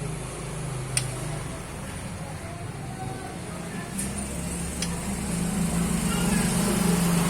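Low, steady hum of a motor vehicle's engine that grows louder in the second half, with a few sharp clicks.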